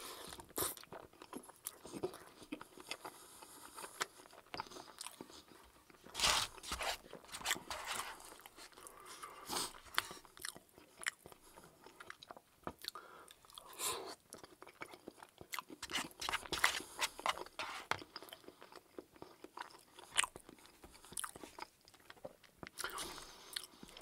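A person chewing food close to the microphone: irregular crunches and wet mouth clicks, with louder bites about 6, 10 and 14 seconds in.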